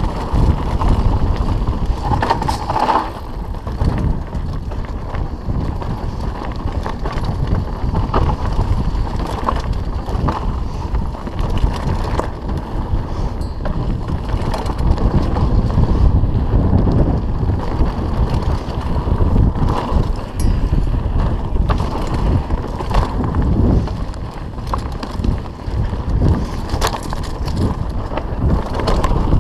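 Mountain bike ridden along a dirt singletrack: steady wind buffeting on the microphone over the rumble of the tyres on the trail, with frequent knocks and rattles as the bike runs over bumps.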